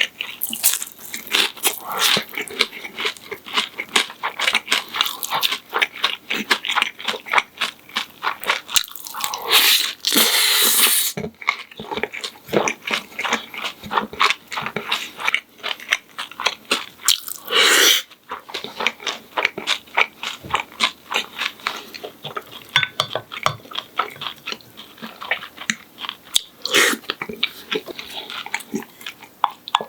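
Close-up crunching and chewing of a crisp fried breaded pork cutlet, many sharp crunches one after another, with a few longer rushing noises of about a second each, near the start of the second third, just before the middle and near the end.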